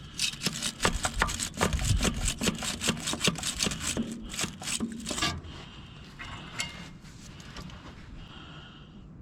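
Rapid scraping or rubbing strokes, several a second, for about five seconds, then they stop and leave only a faint steady background.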